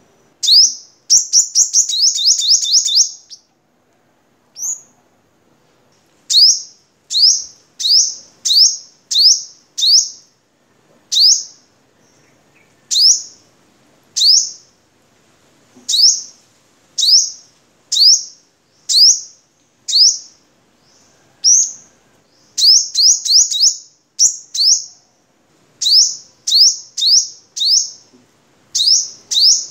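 Male sunbird singing: a quick run of sharp high notes at the start, then a long series of single high notes, each sliding downward, about one a second and now and then bunched into faster runs.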